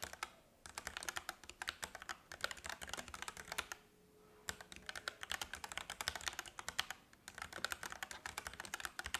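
Fast typing on a mechanical keyboard with switches in it: quick runs of key clacks, broken by short pauses about half a second in, around four seconds in and near seven seconds.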